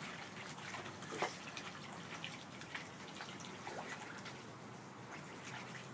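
Young mallard ducklings dabbling and feeding at the water surface of a plastic kiddie pool, making many small irregular splashes and drips.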